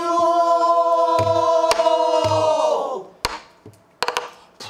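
A woman's pansori voice holding one long sung note that dips slightly and fades out about three seconds in, over a buk barrel drum: two low thumps under the note, then sharp stick clicks, with a quick cluster of clicks near the end.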